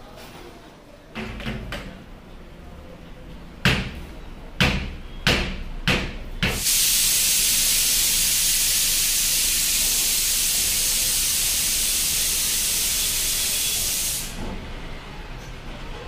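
A ringneck parakeet bathing in a shallow plate of water: several sharp splashes from its wings, then a long, steady hissing spray of splashing as it beats its wings in the water, which stops suddenly.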